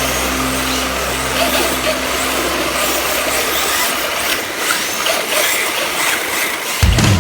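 Live sound of radio-controlled drift cars running: a steady hiss with faint whines rising and falling. Fading music bass is under it for the first few seconds, and music starts again near the end.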